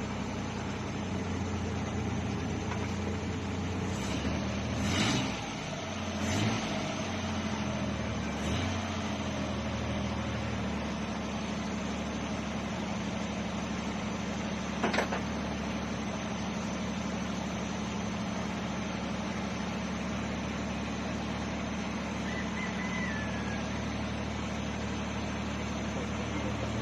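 Engine idling, its low note shifting unevenly for the first several seconds and then holding steady. A few sharp clicks or knocks come about 4 to 9 seconds in and once more about 15 seconds in.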